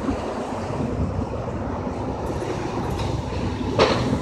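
Wind rumbling on the microphone over steady road traffic. Near the end comes one brief, loud rush of noise as an SUV drives across the railroad grade crossing.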